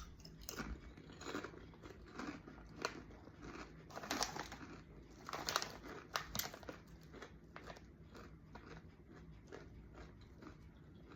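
Someone crunching and chewing Chitato potato chips, a string of short, crisp crunches that come thickest in the first half and thin out toward the end.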